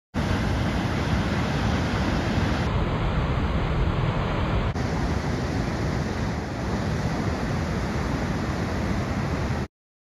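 Steady rushing noise of ocean surf with wind buffeting the microphone. The texture changes abruptly twice, about three and five seconds in, and the sound cuts off just before the end.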